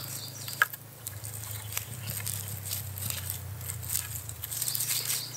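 Cord rustling and small wooden clicks as a cord lashing is pulled through and around three wooden sticks, over a faint steady low hum. One sharper click comes about half a second in.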